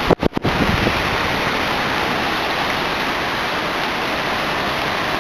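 Heavy rain pouring down in a steady hiss. The sound cuts out briefly twice near the start.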